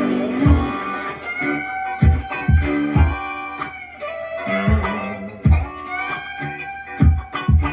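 Solid-body electric guitar played in a funky chicken-pickin' style, short plucked notes and bends over a backing track with a steady beat.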